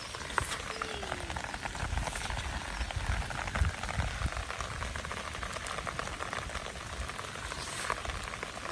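Rain falling steadily, with many close drops ticking over a steady hiss and a low rumble underneath.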